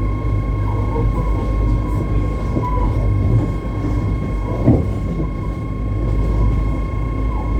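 Stadler electric rack-railway train running, with a steady low rumble and a constant high-pitched whine. There is a single knock about four and a half seconds in.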